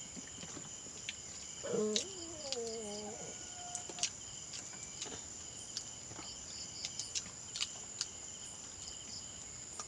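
Night insects chirping in a steady high drone, with scattered faint clicks. A brief voice-like call sounds about two seconds in.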